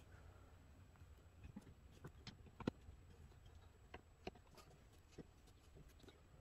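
Faint, scattered clicks and ticks of a screwdriver working the top screws of a Rochester 4GC carburetor as they are tightened down, with quiet gaps between; the sharpest click is about two and a half seconds in.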